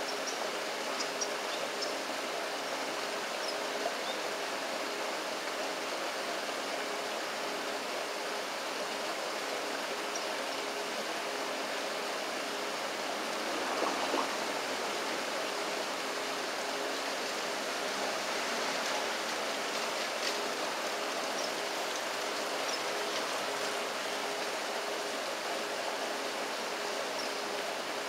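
Steady rush of flowing river water, with a few faint high chirps near the start and a brief louder sound about halfway through.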